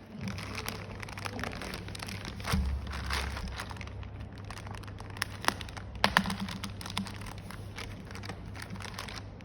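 Packaging being handled and opened: crinkling and rustling with scattered sharp clicks and snaps, over a low steady hum.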